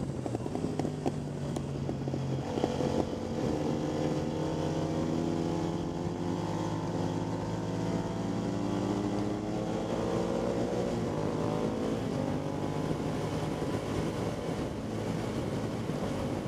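Motorcycle engine running under load on track. There is a brief break in the note about two and a half seconds in, then the pitch climbs gradually as the bike accelerates and holds fairly steady near the end.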